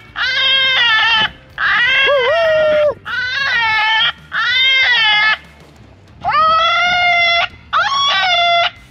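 FOXPRO electronic predator call playing a bleating animal distress cry through its loudspeaker to lure coyotes in. Six cries of about a second each, with short gaps between them, some falling in pitch at the end.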